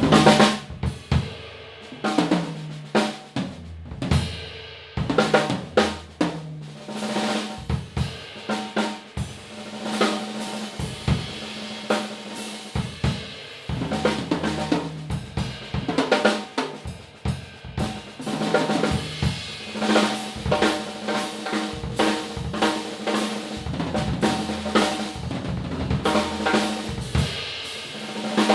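Yamaha Oak Custom oak-shell drum kit played in a sound check, with snare, bass drum, hi-hat and cymbal strikes mixed with ringing tom and drum tones, heard through room microphones.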